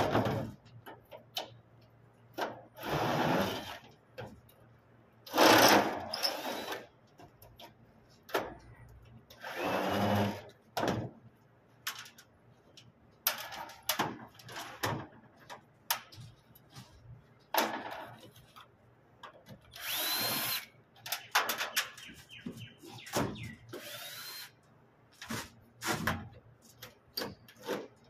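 Power drill running in repeated short bursts of about a second each, several of them with a rising whine as the motor spins up, between quiet gaps.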